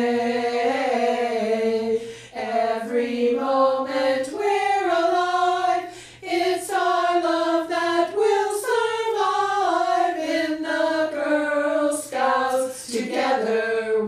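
A small group of women's voices singing a melody together, opening on a long held note and then moving through several short phrases.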